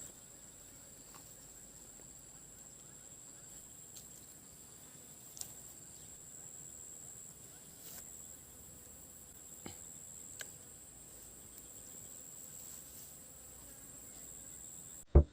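Faint, steady high-pitched chirring of insects in the swamp, with a few soft clicks. A sudden loud thump near the end.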